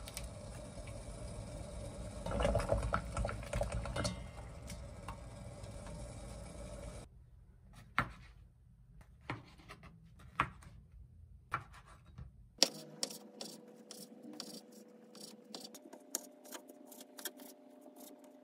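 Water boiling in a stainless steel pot, with metal tongs clinking as jar lids are turned in it. Then a knife cuts through figs on a plastic cutting board, single cuts about a second apart. Near the end the cuts turn into quick, rapid chopping.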